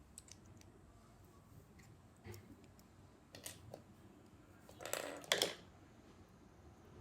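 Small LEGO plastic parts and packaging being handled: scattered light clicks, then a short rustle about five seconds in followed by two sharper clicks.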